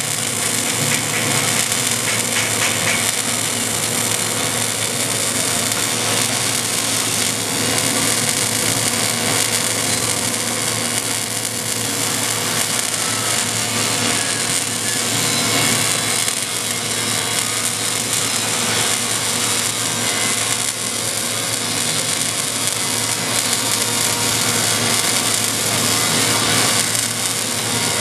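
MIG welding arc on carbon steel pipe, a steady crackling hiss as a bead is run around the pipe-to-flange joint.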